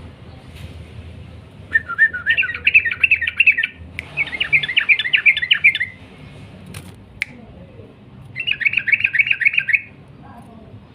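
Sooty-headed bulbul (trucukan) singing in full voice: three long, rapid chattering phrases of about one and a half to two seconds each, with short pauses between.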